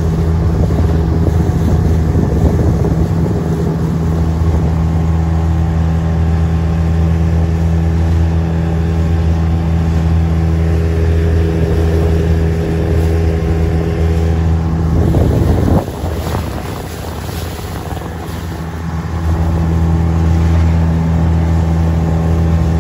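A small boat's outboard motor runs steadily under way, with water and wind hiss. It eases off about two-thirds of the way through, then picks back up a few seconds later.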